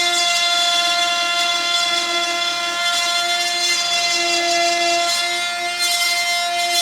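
Small high-speed power tool whining steadily as it cuts an opening in a plastic box, its pitch holding steady with a lower hum that comes and goes as the cut loads it.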